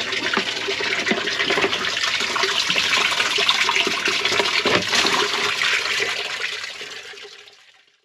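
Water gushing and splashing into a container as it is filled with seawater to hold a live fish, with a steady hum underneath; the sound fades away near the end.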